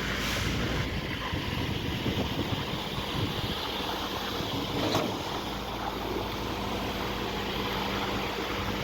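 Truck-mounted concrete pump running steadily on a slab pour, with wind on the microphone and a single knock about five seconds in.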